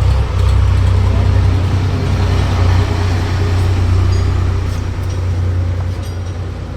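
Bajaj Pulsar single-cylinder motorcycle engine running steadily with a deep low rumble, easing off somewhat near the end.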